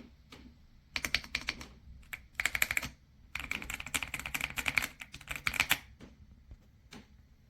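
Typing on the AULA F75 Pro mechanical keyboard with its pre-lubed Reaper switches: three quick runs of keystrokes about a second, half a second and two and a half seconds long, with a few single key presses before and after.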